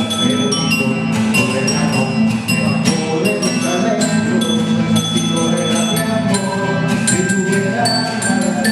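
Live instrumental music: short ringing, bell-like notes over a steady low accompaniment, with regular percussion strokes.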